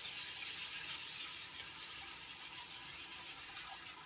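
Kitchen tap running in a steady stream of water.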